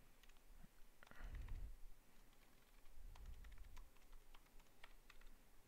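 Faint computer keyboard typing: separate key clicks at an uneven pace as a password is typed in, with a soft low rumble about a second in and again around three seconds.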